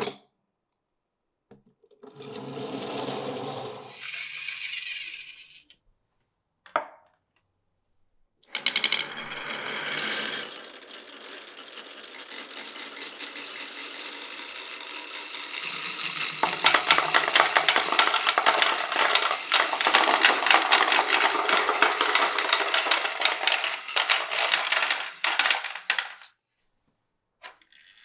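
Glass marbles rolling and clicking down a wooden marble run. First come a few short runs with silent pauses between them. About a third of the way in a long stretch of rapid clacking and rattling begins; it grows busier in the second half and stops shortly before the end.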